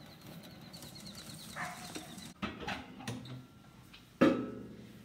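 Knocks of split firewood being handled and loaded into a wood heater, the loudest a sharp knock with a short ring about four seconds in as a log strikes the stove.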